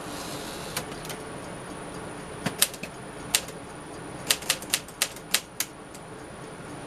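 Keys of a 1959 Smith-Corona Silent-Super manual typewriter striking the platen: a few separate keystrokes, then a quick run of about seven near the end.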